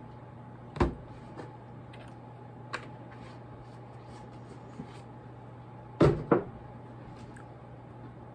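Tabletop handling knocks: a thud about a second in as the plastic milk jug is set down, a few light knocks, then two knocks in quick succession about six seconds in as the ceramic cereal bowl is handled. A steady low hum runs underneath.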